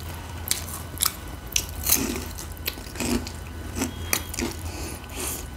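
Crunching and chewing of chatpate, a dry mix of crisp Wai Wai noodles and puffed rice, close to the microphone: a string of short, irregular crunches, about two a second.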